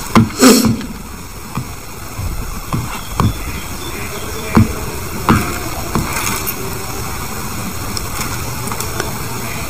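Computer mouse clicks and desk knocks, a dozen or so at irregular intervals, the loudest about half a second in, over a steady background hum.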